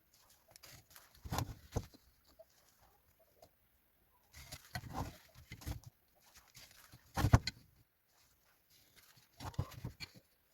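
Irregular knocks and short rustling, handling-type noises in a few separate bursts, with quiet between them; the loudest is a sharp knock about seven seconds in.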